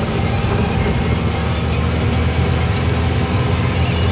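Steady engine and road noise of a moving vehicle heard from inside the cabin, a low rumble.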